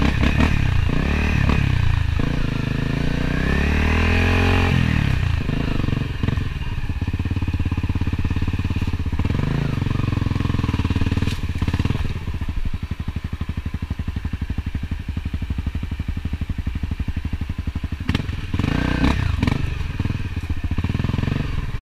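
Enduro dirt bike engine being ridden, its revs rising and falling through the first few seconds. About halfway through it settles into a low, even chugging for several seconds, then revs up again before the sound cuts off abruptly near the end.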